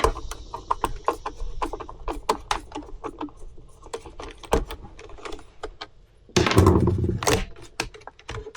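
Irregular small clicks and knocks of the plastic housing of a Stihl BG 65C leaf blower being handled and worked on, with a louder clattering stretch about six and a half seconds in.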